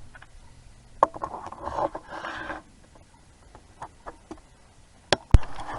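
Rustling and scraping for a second and a half, starting with a sharp click about a second in, then scattered small ticks and two sharp clicks close together near the end, the second the loudest.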